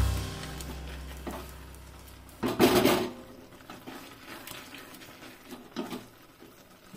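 Wooden spatula stirring and scraping thick carrot halwa against a steel kadhai while the milk cooks down. One louder scrape comes about two and a half seconds in, then softer scrapes.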